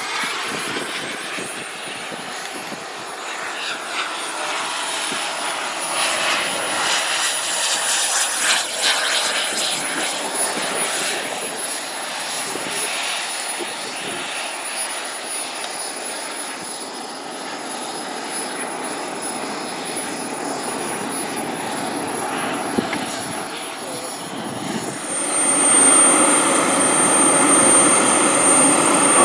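Radio-controlled model jet's engine whining at a high pitch through its takeoff and flight, the pitch rising over the first few seconds and then holding steady. Near the end it grows louder and the whine drops a little as the jet comes back low and close.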